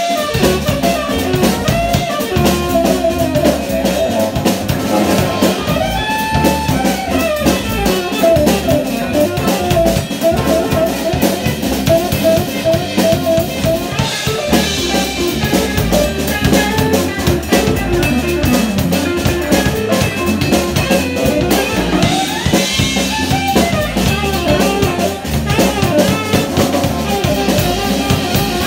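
Live jazz band playing: a tenor saxophone plays the melody over electric bass and a drum kit.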